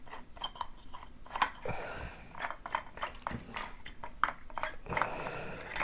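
3D-printed plastic parts being unscrewed and handled on a hand-cranked yarn winder: scattered small clicks and scrapes of plastic on plastic.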